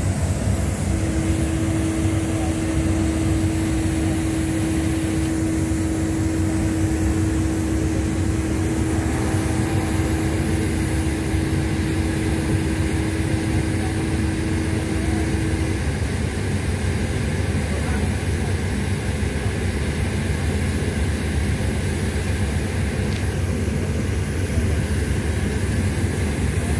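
Steady low rumble of ship's machinery on deck. A steady mid-pitched hum starts about a second in and stops about fifteen seconds later.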